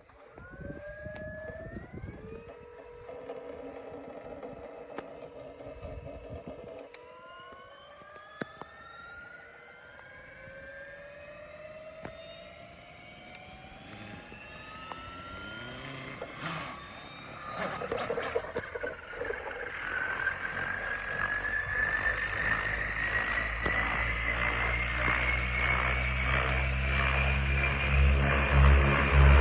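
700-size electric RC helicopter spooling up: the brushless motors' whine rises in pitch in steps and then in a long steady glide, growing louder, with the rotor's low beat building near the end.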